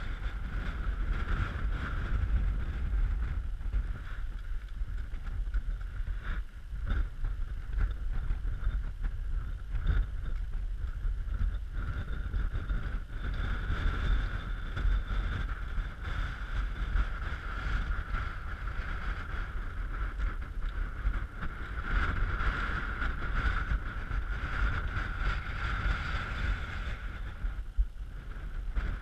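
Gusty wind buffeting the camera microphone in a rumbling, uneven roar, with a fainter steady whine running underneath.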